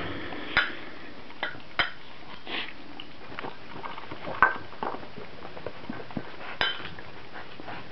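Light clinks and knocks at irregular intervals, typical of a metal food dish being nudged and licked around the puppy pen; the sharpest knocks come about half a second in and near the end.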